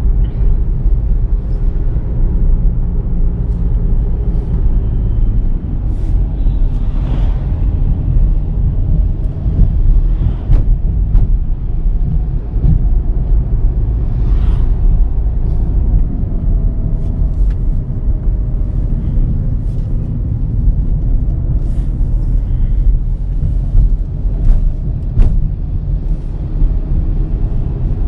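Volkswagen Virtus GT on the move, its 1.5-litre turbocharged four-cylinder engine and tyres making a steady, heavy low rumble, with scattered light knocks and clicks.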